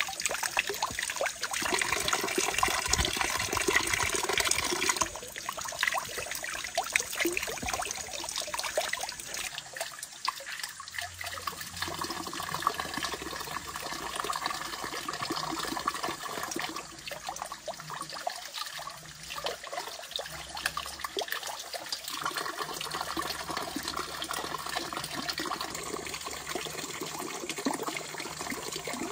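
Running water splashing and trickling steadily, louder for the first five seconds and then lower.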